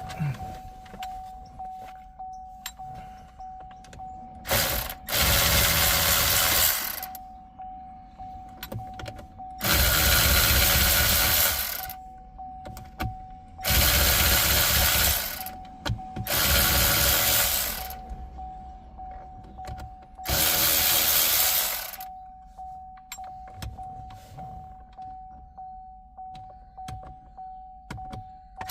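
Cordless power driver running in about five short bursts of one to two seconds, backing out the 7 mm bolts that hold the steering column trim of a Chevy Camaro. A steady high warning tone from the car sounds underneath throughout.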